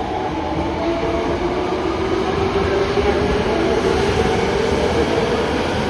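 Osaka Metro Midosuji Line subway train running at the platform, a steady rumble with a motor tone rising slowly in pitch as it gets under way.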